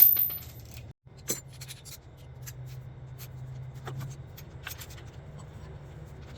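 Hand tools working on the banjo bolts of a turbo oil and coolant line: a sharp metal click at the start, then a few scattered light ticks over a low steady hum.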